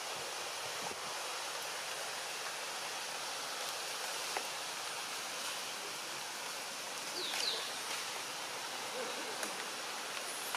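Steady rushing hiss of outdoor background noise, with one brief high chirp about seven seconds in.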